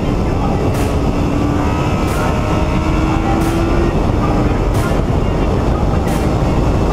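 Sport motorcycle ridden at speed, heard from on board: heavy wind rush over a steady engine note that climbs slowly in pitch between about two and four seconds in, then falls away.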